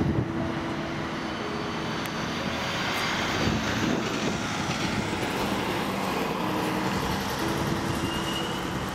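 Steady traffic noise in a city street, with a heavy vehicle's engine running as a motor coach passes, making a continuous rush without breaks.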